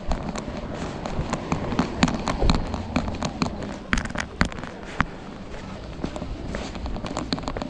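A rapid, irregular series of sharp clicks and knocks, several a second, over a steady hiss.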